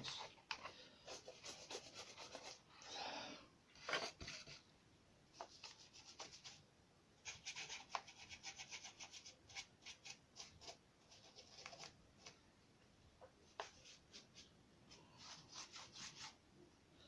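Paintbrush working ink wash onto a paper model: faint, quick scratchy strokes in short runs, with brief pauses between them.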